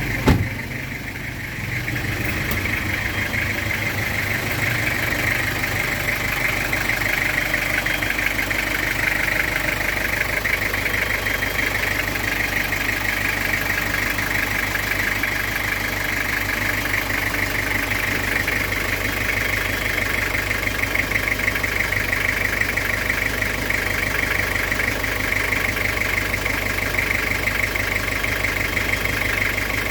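Toyota 2C four-cylinder diesel engine idling steadily, with a fine rapid clatter. A single sharp knock sounds just after the start.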